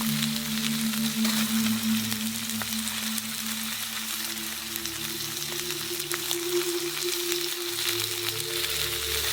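Food sizzling and crackling as it fries in a pan over a campfire: a steady hiss dotted with fine pops. Soft background music with held notes plays underneath, its pitch changing about four seconds in.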